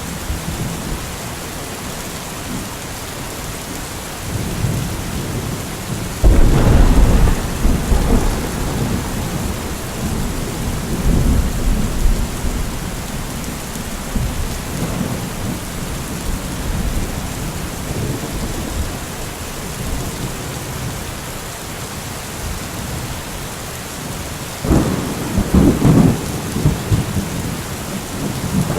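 Steady rain with rolling thunder: a sharp clap about six seconds in rumbles off over several seconds, and a second loud peal comes near the end.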